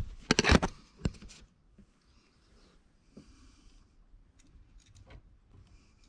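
Rustling and knocks of a handheld camera being moved and set down, loudest in the first second and a half, then faint breathing and a few small clicks as wires are handled at the outlet box.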